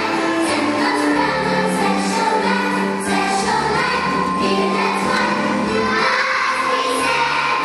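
A large children's choir singing a song together, many young voices in unison.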